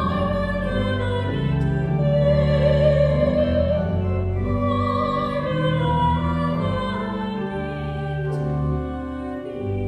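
Slow church music with held chords changing about once a second, and a solo voice singing over them.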